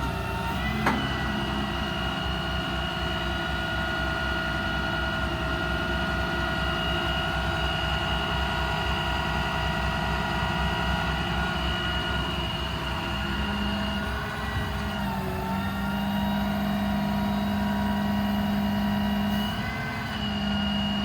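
The Ram 5500's Cummins 6.7 diesel runs steadily, driving the IMT crane's hydraulics, with a steady whine of several tones as the crane winch pays out. There is a click about a second in, and the tones dip and bend briefly twice near the end as the hydraulic functions change.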